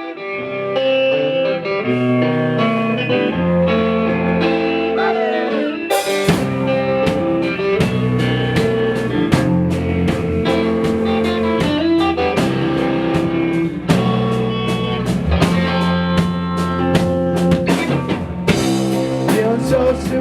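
Rock band playing an instrumental passage: guitar chords over bass, fading in at the start, with the drum kit coming in about six seconds in.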